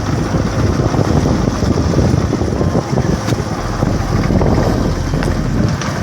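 Yamaha SR125's single-cylinder four-stroke engine running steadily after its carburettor rebuild, now running well.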